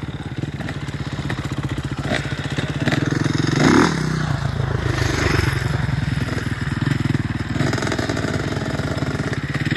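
Dirt bike engines running, the nearest idling with a rapid even firing beat, with a short rev about four seconds in.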